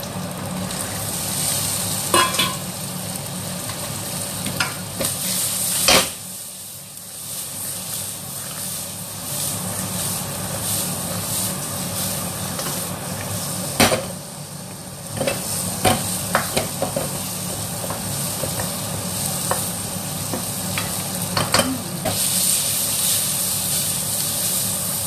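Snap peas and Chinese sausage sizzling in a wok as they are stir-fried, a spatula scraping and clacking against the pan. Several louder knocks come through. Twice, after a knock, the sizzle briefly dies down before picking up again. A steady low hum runs underneath.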